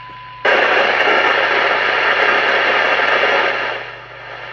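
The Moonraker Master CB receiver's steady test tone cuts off about half a second in, and loud FM receiver hiss follows with the squelch open and no signal coming in. Near the end the hiss drops to a lower, steady level.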